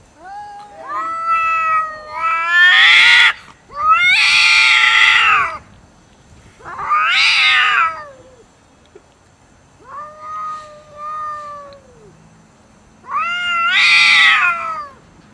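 Two cats caterwauling at each other: a string of long, drawn-out yowls that waver up and down in pitch. They are loudest around three to five seconds in and again near the end, with quieter wails in between. These are the threat calls of two rival cats in a standoff over food.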